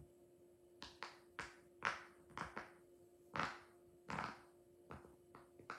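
A plastic fidget toy being worked in the hands: about a dozen short, irregular pops and brief swishes, roughly two a second.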